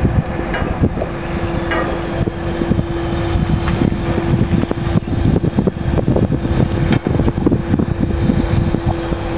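Mobile crane's engine running steadily while it slews and lowers its telescopic boom, a constant mid-pitched tone held over a low rumble. Wind buffets the microphone.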